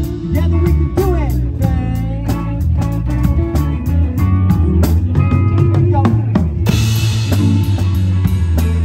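Live psychedelic rock band playing: drum kit, bass and electric guitar, with sliding lead notes about a second in and the cymbals washing in brighter near the end.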